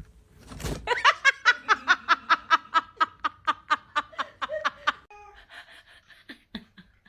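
A person laughing hard in a fast, even run of pitched "ha"s, about five a second, that weakens after about four seconds and gives way to a few fainter sounds.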